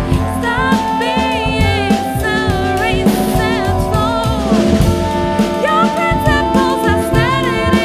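Live band playing a song: a drum kit keeps a steady beat with snare hits under sustained chords, while a lead melody slides and bends in pitch over the top.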